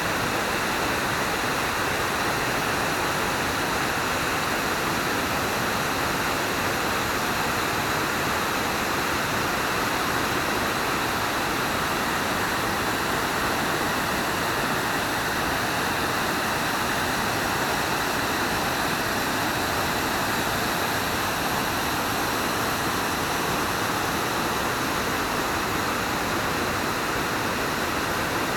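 Waterfall at the Agua Azul cascades: water pouring and rushing in a steady, unbroken roar.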